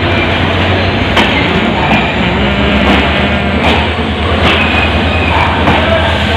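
Steady loud low hum and rumble of a stationary passenger train standing at the platform, with a few scattered sharp clicks over it.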